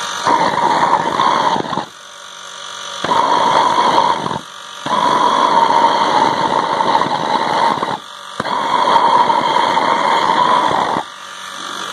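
Homemade waste-oil burner on its first lighting, with a temporary MIG-tip nozzle: compressed air and atomised oil rush through the nozzle in four surges of one to three seconds, with a quieter steady hiss in between. The flame is catching but not yet burning steadily.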